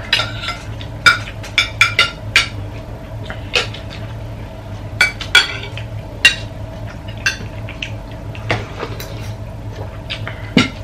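Spoons and forks clinking and scraping on ceramic plates as people eat: irregular sharp clinks, busiest in the first couple of seconds and again about five seconds in, over a steady low hum.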